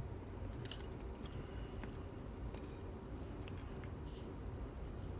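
Small metal lock parts lightly clinking and ticking as they are handled: a few scattered faint ticks, with a small cluster about two and a half seconds in.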